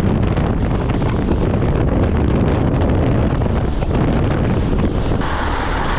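Loud wind buffeting a chest-mounted camera's microphone on a fast mountain-bike descent, a steady rushing noise heaviest in the low end. About five seconds in the noise changes abruptly.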